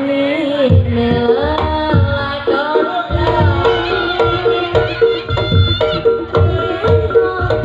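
Reog Ponorogo gamelan music: kendang hand drums with a steady repeating chime note, over a gliding melodic line; the beat settles into a regular pulse about three seconds in.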